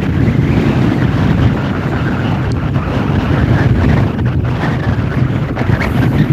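Tugboat diesel engine running steadily with a low rumble, and strong wind buffeting the microphone.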